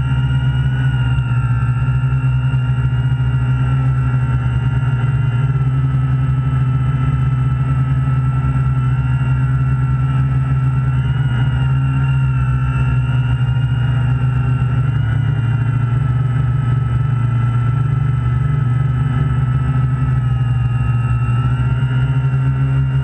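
Quadcopter's electric motors and propellers buzzing steadily, heard from the camera mounted on the craft: a loud low hum with a higher whine on top whose pitch wavers slightly.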